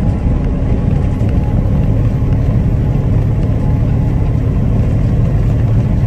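Inside a moving truck's cab: a steady low drone of the engine with tyre and road rumble.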